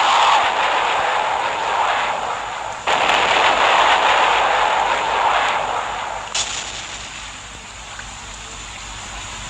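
Earthquake sound effect: a loud rushing, crashing noise that surges again suddenly about three seconds in, then dies down over the last few seconds.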